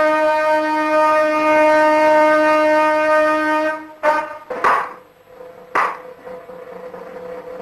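A long, loud held note on a wind instrument with many overtones, which breaks off just under four seconds in. A few sharp knocks follow over a fainter held note.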